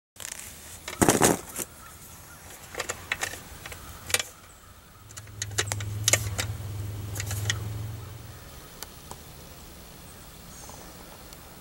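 Metal clicks and knocks from wiring an AC disconnect box: a screwdriver and copper wire tapping against the sheet-metal enclosure and its terminals, loudest about a second in. A low hum runs underneath for a few seconds in the middle.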